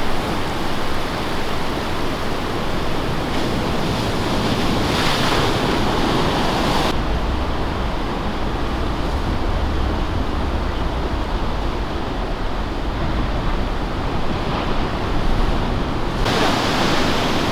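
Surf breaking, with wind buffeting the microphone. For about nine seconds in the middle a low wind rumble takes over and the hiss of the waves falls away, then the surf hiss returns.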